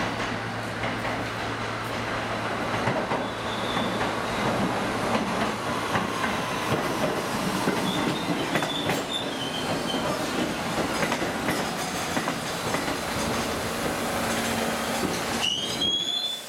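Budd R32 subway train rolling slowly into an elevated station and braking toward a stop: a steady rumble of wheels on rail with clicks over the rail joints, a faint motor whine falling in pitch as it slows, and brief high wheel squeals, the last one rising near the end.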